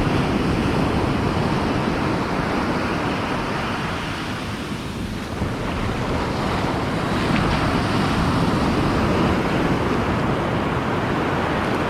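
Ocean surf washing on the beach, a steady rush that eases a little about halfway through and builds again, with wind buffeting the microphone.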